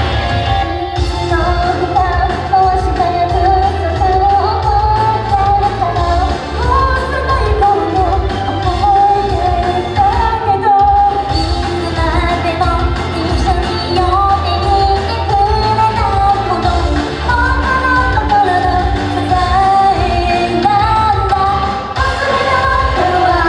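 A live J-pop-style idol song played loud over a venue PA, with a female vocal line over a heavy bass beat and band backing, and a short break in the sound just before the halfway point.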